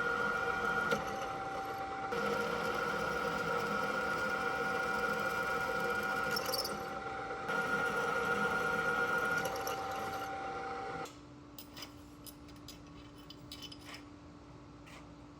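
Shop machine tool running, a steady whine of several tones. About eleven seconds in it gives way to a much quieter low hum with light ticks.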